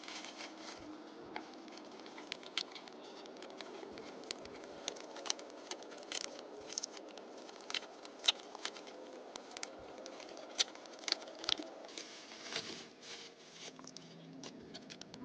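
Hands handling packaging and accessories: irregular light clicks and taps mixed with soft rustling and scratching of plastic and cardboard.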